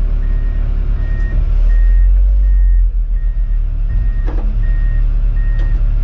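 Bulldozer's diesel engine running under its reverse back-up alarm, which beeps steadily about once every three-quarters of a second as the dozer backs up. A short knock comes a little past four seconds in.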